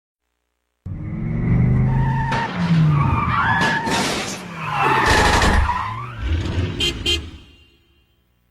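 Cartoon car sound effect: an engine running with squealing, skidding tyres, starting suddenly about a second in and peaking twice, then a quick rattle of clicks before it fades out.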